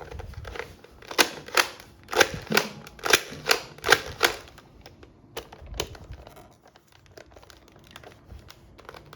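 A run of sharp plastic clicks from a toy gun being worked by hand: about nine in quick succession over some three seconds, a couple more a little later, then quiet handling.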